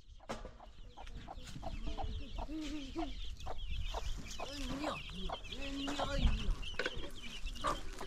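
Chickens clucking in short, irregular calls, over a steady layer of high chirping.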